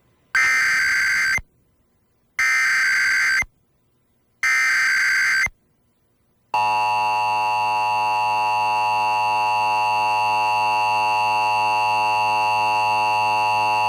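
Emergency Alert System Required Monthly Test from an FM radio station, played through a stereo: three bursts of SAME digital header data, each about a second long and a second apart. Then, about six and a half seconds in, the steady two-tone attention signal (853 and 960 Hz) starts and holds.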